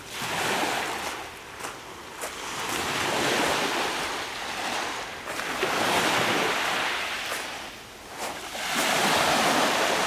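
Small sea waves breaking and washing up a pebble beach, the surf swelling and falling back about every two to three seconds.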